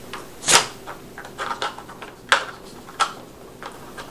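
Plastic sliding blocks of a Dog Brick food puzzle clacking and knocking as a dog works them with nose and paws. A louder knock comes about half a second in, softer clatter follows, and then two sharp clacks.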